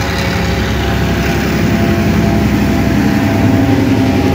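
Sri Lanka Railways M2D class diesel locomotive running under power as it pulls a passenger train away from the station. It grows louder about three seconds in as the locomotive comes alongside.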